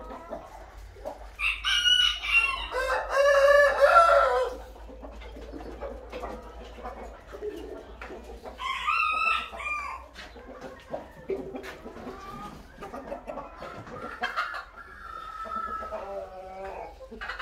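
Roosters crowing: a long loud crow, overlapped by a second one, starting about two seconds in, and another crow about nine seconds in, with quieter chicken calls in between and near the end.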